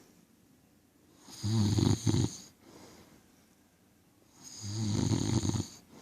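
Snoring: two long snores about three seconds apart, each a low buzzing rattle lasting about a second, with quiet breathing between them.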